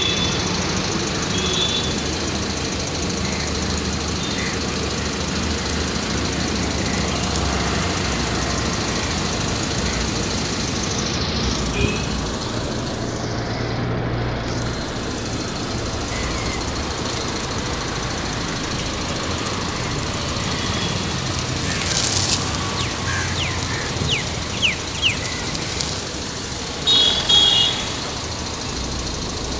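Steady road traffic noise from passing vehicles, with a few short high-pitched beeps near the end.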